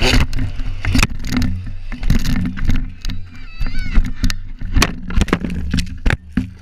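Dirt bike engine running under a string of hard knocks, clatters and scrapes as the bike and rider crash and tumble through dirt and brush.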